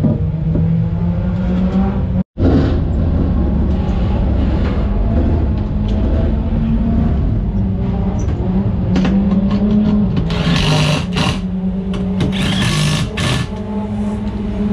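Cordless drill running in several short bursts from about ten seconds in, driving the bolts of a racing wheel's beadlock ring, over a steady engine drone in the background.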